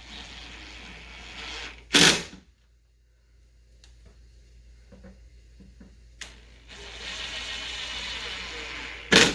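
Power drill with a Phillips bit driving wood screws into hardwood: two runs of the motor of about two seconds each, one at the start and one near the end, each followed by a short loud burst.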